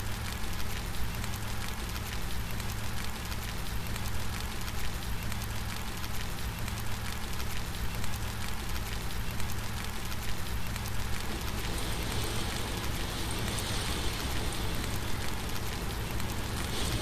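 Steady rain, an even hiss of many falling drops. About two-thirds of the way in, the sound shifts to a slightly fuller, brighter downpour.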